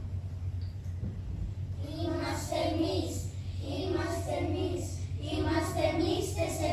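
A group of children singing together, starting about two seconds in, in short phrases with brief breaks between them. A steady low hum runs underneath.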